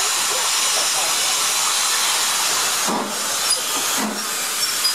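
BR Standard 9F 2-10-0 steam locomotive No. 92212 letting off a steady loud hiss of steam, with two short low puffs about three and four seconds in as it starts to move off.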